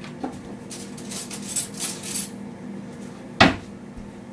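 Metal cutlery clinking and rattling against dishes in a quick run of light knocks, then one sharp clack about three and a half seconds in.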